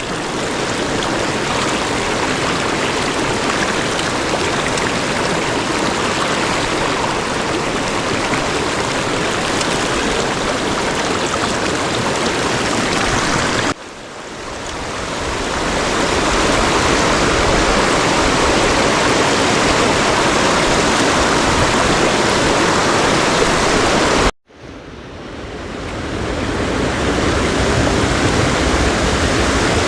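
Loud, steady rush of a mountain stream's flowing water. It cuts out abruptly twice, about halfway and again near the end, and swells back each time.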